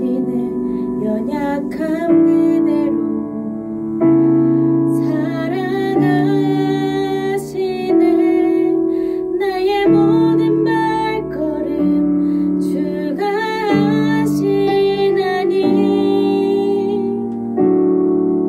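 A singer performing a slow worship song over piano chords that change about every two seconds.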